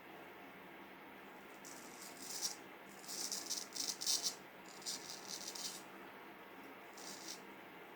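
Vintage Norton straight razor scraping through a week-old beard: a series of short, crisp scraping strokes in quick groups, starting about two seconds in.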